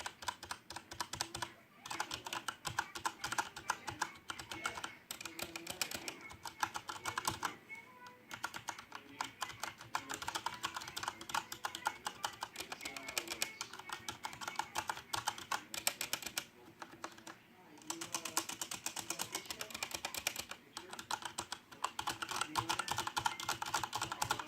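Typing on a Corsair K70 mechanical keyboard with Cherry MX Brown switches and rubber dampeners on the keys: fast runs of key clicks in bursts, with a few short pauses between them.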